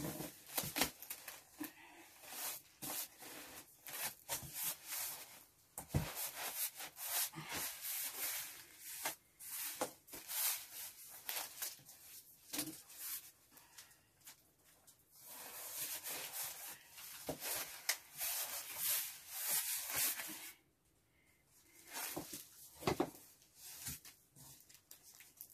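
Cardboard box and its packed contents rustling, scraping and knocking as the box is handled and filled by hand, in irregular bursts with a short lull near the end.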